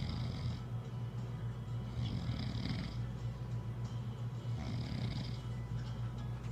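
A woman snoring in a steady rhythm, about one breath every two and a half seconds, each breath carrying a hissy rasp over a continuous low drone.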